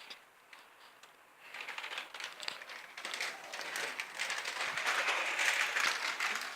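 Cat chewing lettuce leaves: a dense run of crisp crunching and crackling that starts about a second and a half in and grows louder towards the end.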